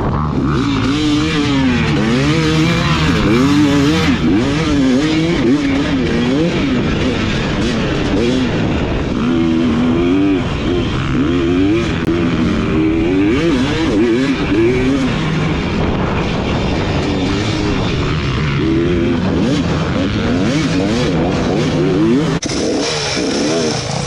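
Two-stroke dirt bike engine revving up and down while riding, its pitch rising and falling again and again over a steady rush of wind and terrain noise. The sound changes abruptly near the end.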